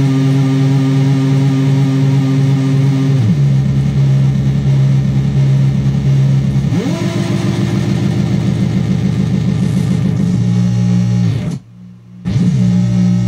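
Eurorack drone from two chained Sound of Shadows v3 delay modules, a buzzy, overtone-rich tone changed by hand on the knobs. Its pitch slides down a few seconds in, slides back up into a fast warble, then slides down and cuts out briefly near the end before coming back.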